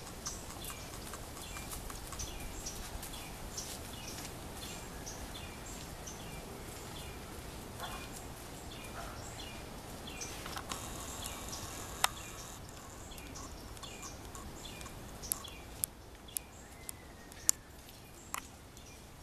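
Outdoor ambience with steady background noise and a bird calling over and over, short falling chirps about twice a second. A few sharp clicks, one midway and several near the end.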